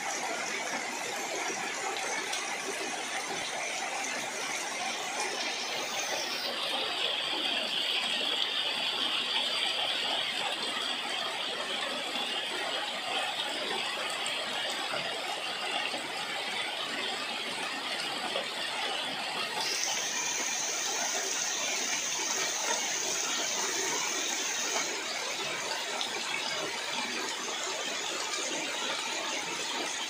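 Heavy rain pouring steadily onto leaves and muddy ground, a dense even hiss. A high, steady whine joins in about six seconds in, and a higher one starts suddenly about twenty seconds in and stops a few seconds later.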